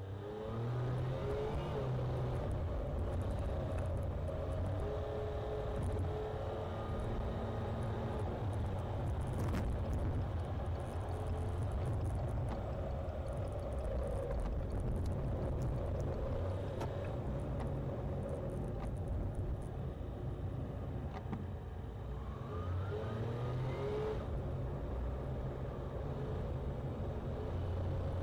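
Car engine and road noise inside the cabin as the car pulls away from a stop, the engine pitch rising as it accelerates. Near the end the engine eases off, then rises again in a second acceleration.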